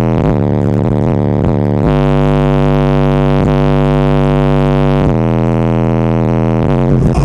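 Car-audio subwoofer playing a bass-heavy song at high volume: loud sustained bass notes with a buzzing stack of overtones, the note changing about every second and a half. The sound briefly breaks up near the end.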